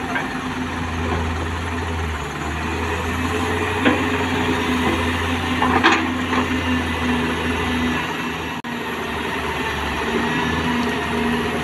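JCB tracked excavator's diesel engine running steadily under digging load, with two sharp clanks about four and six seconds in.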